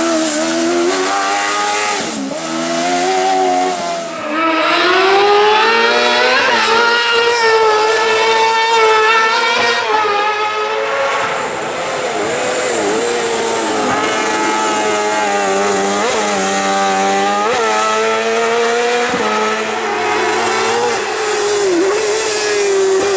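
Motorcycle-engined kart-cross buggy driven at full throttle. The engine pitch climbs through each gear, breaks sharply at every shift, and drops briefly when the driver comes off the throttle.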